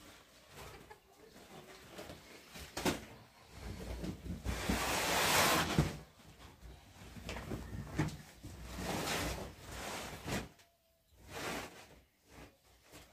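Cloth rustling and swishing as a large fabric sheet is unfolded, shaken out and spread on a floor, with a few soft knocks; the loudest swish comes around the middle.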